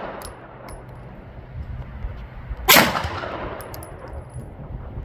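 A single pistol shot from a custom CZ P10C about two and a half seconds in, its report echoing away, followed by faint high pings.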